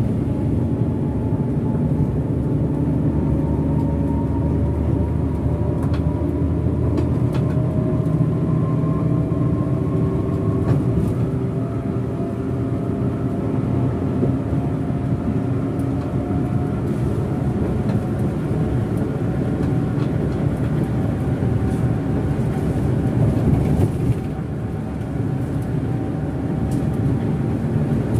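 Hino RK8 bus's rear-mounted six-cylinder turbo-diesel heard from the driver's seat, pulling steadily under load with its pitch climbing slowly over the first ten seconds or so, over tyre and road noise. The sound dips briefly about 24 seconds in.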